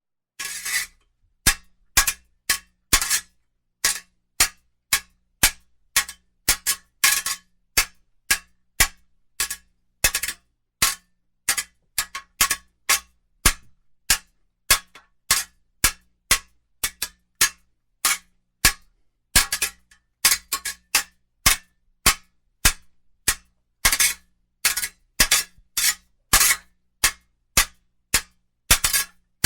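Steel swords clashing blade on blade in a sword fight: a rapid, uneven series of sharp metallic clangs, often in quick pairs, each with a short ring.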